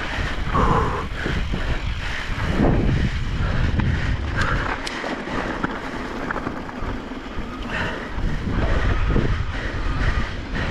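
Wind rumbling on the microphone of a moving e-bike and its tyres rolling over a sandy dirt trail, with scattered clicks and rattles.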